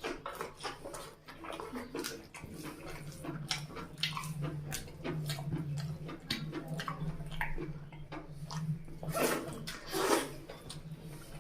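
Close-up eating sounds: chewing with wet mouth smacks and clicks, taken in big bites of chicken curry and rice, louder in a burst about nine seconds in. A steady low hum runs underneath.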